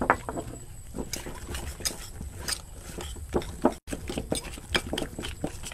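Wire whisk stirring thick cake batter in a glass bowl, its wires clicking and scraping against the glass in quick, irregular strokes. The sound cuts out for an instant about two-thirds of the way through.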